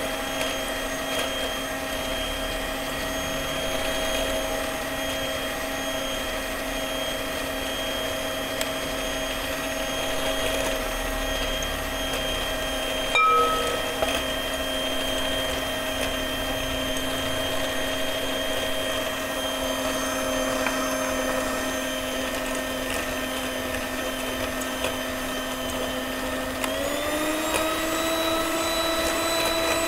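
Electric hand mixer running steadily with a motor whine as its beaters whip eggs and sugar in a glass bowl, with a short clack about halfway through. Near the end the whine steps up in pitch as the mixer speeds up.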